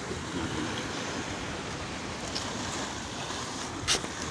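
Sea waves washing on the shore in a steady rushing roar, with one short click about four seconds in.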